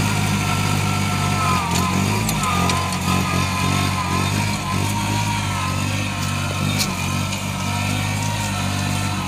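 Kubota 27 hp tractor's diesel engine running steadily, with a faint wavering whine above the engine note.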